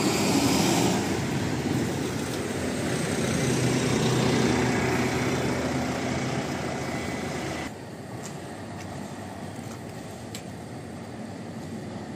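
Diesel engine of a Wright-bodied Volvo double-decker bus running as it pulls away. About three-quarters of the way through it cuts off abruptly to fainter, steady street traffic noise with a few light clicks.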